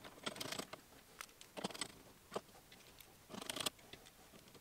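Faint clicks and light scraping of a small screwdriver turning countersunk bolts into an aluminium adapter plate on a linear rail carriage, in a few short bursts.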